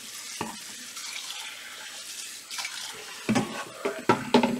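Kitchen tap running water into brown rice for a final rinse, a steady rush, with a few louder knocks near the end.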